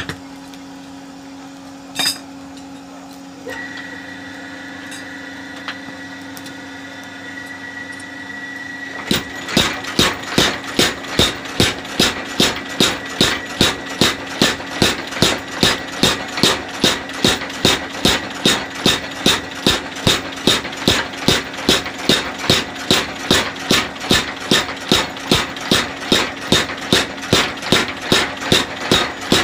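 A steady machine hum, then from about nine seconds in a homemade 25 kg mechanical power hammer strikes a red-hot leaf spring in an even run of sharp blows, about two and a half a second.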